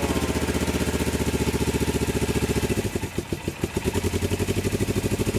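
1981 Suzuki GS450L air-cooled parallel-twin engine running on full choke at its first start after about ten years laid up. It runs evenly at first, stumbles and nearly dies for about a second near the middle, then picks up and runs steadily again.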